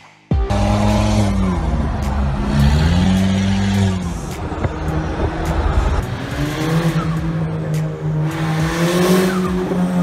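Car engine revving up and down while its tyres squeal as the car slides sideways in a drift. It starts suddenly a moment in, and the engine holds a steady pitch near the end.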